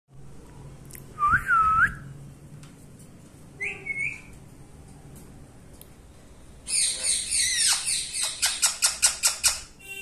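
Ringneck parakeet calling: two short whistles early on, then from about two-thirds in a loud run of harsh calls, falling squeals followed by a rapid series of sharp repeated notes about four a second.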